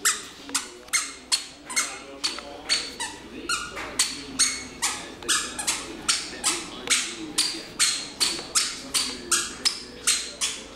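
Toddler's squeaky shoes chirping with every step as he walks, a short high squeak about two or three times a second.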